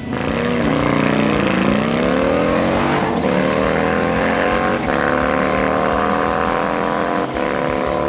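Harley-Davidson Milwaukee-Eight touring bagger with a 135-cubic-inch V-twin accelerating hard from a standing launch. The engine pitch climbs and drops briefly at each of three upshifts, about three, five and seven seconds in.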